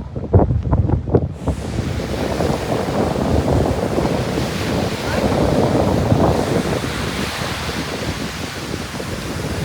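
Ocean surf washing onto a beach, a steady broad hiss that swells in about one and a half seconds in. Wind buffets the microphone with low thumps at the start.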